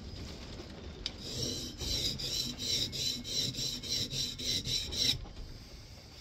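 A steel scrub-plane iron with a cambered edge is being honed by hand on a Norton oilstone, steel scraping on stone in quick back-and-forth strokes, about two or three a second. The strokes start about a second in and stop abruptly about five seconds in.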